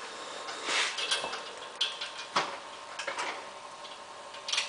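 Automated mini drill rig running its homing sequence before drilling: a faint steady hum with scattered sharp clicks and knocks.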